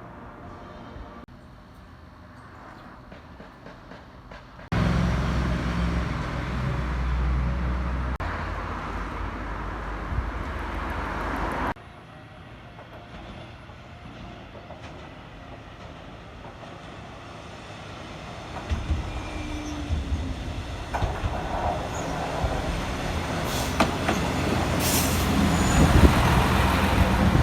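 Matsuura Railway diesel railcar running on the line. A loud stretch starts and stops abruptly between about five and twelve seconds in, then the sound grows steadily louder through the last ten seconds.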